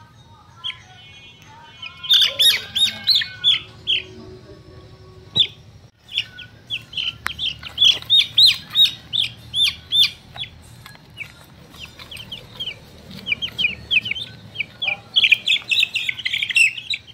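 Bouts of rapid, short, high chirping calls, several a second, each sliding down in pitch.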